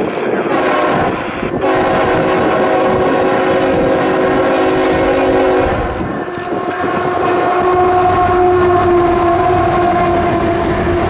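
CSX diesel freight locomotive's air horn sounding two long blasts as the train nears the grade crossing, with a short break about six seconds in. Under the horn, the locomotives and train run past with a rumble and clatter of wheels on the rails.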